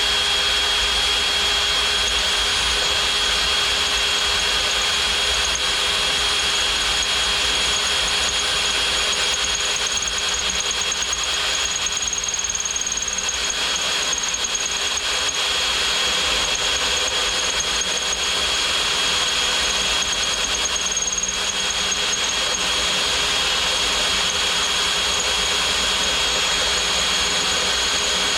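Electric drill boring slowly through thick steel under light pressure, running steadily with a constant high-pitched whine as the bit cuts.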